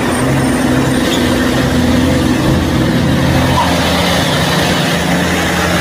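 Truck engine running steadily, a deep hum under a loud rushing noise, its low tones shifting slightly about halfway through.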